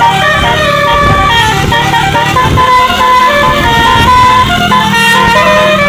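Tour bus's telolet basuri musical horn playing a melody of quick stepped notes, over a low rumble.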